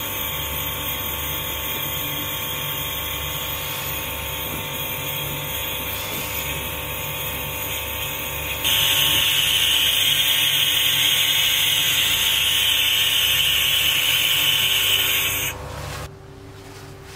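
Gas torch hissing steadily. It grows louder about nine seconds in and cuts off suddenly about fifteen and a half seconds in, leaving a much quieter steady hum.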